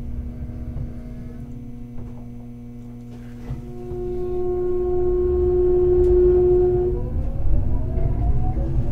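Hakodate City Tram Type 3000 heard from on board, starting to move. Its VVVF inverter sets up a steady electric whine about three and a half seconds in that grows louder, and from about seven seconds the whine's tones rise in pitch together as the tram picks up speed.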